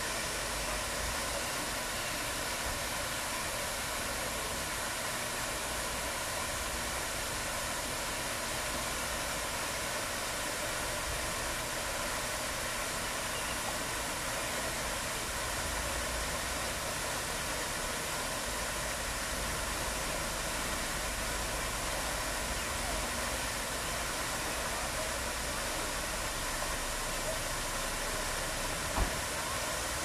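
Steady splash and hiss of fountain jets falling into a pond, with a low rumble coming and going underneath and one sharp knock near the end.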